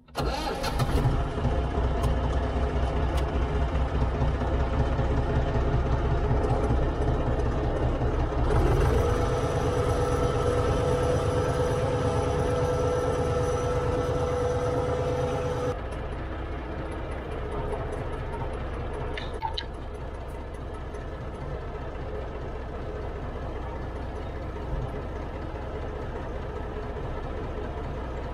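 Small tractor's diesel engine starting, then running under way at a steady speed. A steady whine joins it for several seconds midway. After that the engine drops back to a lower, quieter speed.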